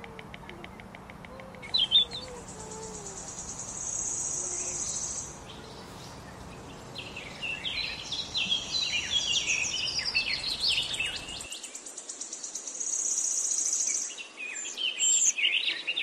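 Small songbirds chirping and twittering in quick, sweeping notes, most busily in the middle and near the end, over a high, fast buzzing trill that starts and stops several times.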